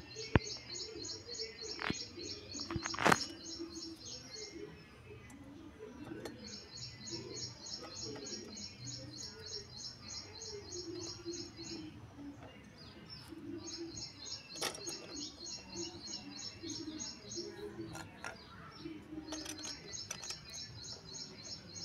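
A small bird chirping in fast, evenly repeated runs of high notes, each run about four seconds long with short pauses between. A few sharp clicks stand out, the loudest about three seconds in.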